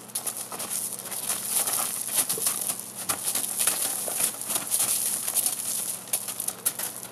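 Donkey hooves scuffling and crunching on gravel as two donkeys play-fight, rearing and wheeling: a quick, irregular clatter of many small impacts.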